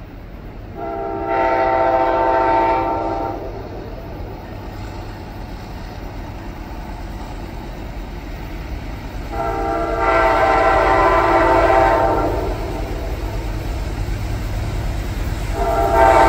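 Amtrak Auto Train locomotive's air horn sounding two long chord blasts, with a third starting near the end: the warning pattern for the grade crossing it is approaching. A low rumble of the oncoming train grows underneath.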